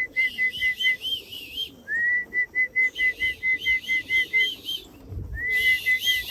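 A person whistling to call homing pigeons back into the loft: runs of short, even notes at about five a second, each run opening with an upward-sliding note, broken off and started again twice.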